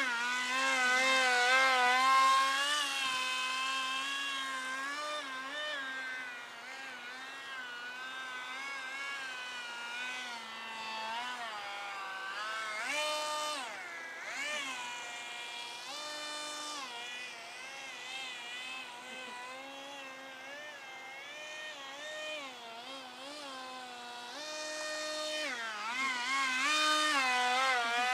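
Motor of a radio-controlled foam Alpha Jet model, whining with a pitch that rises and falls constantly as the throttle is worked. It is loudest as the model passes close about two seconds in and again near the end.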